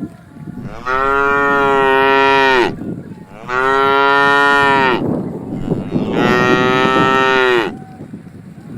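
A calf mooing three times, each call about two seconds long, trailing down in pitch at its end.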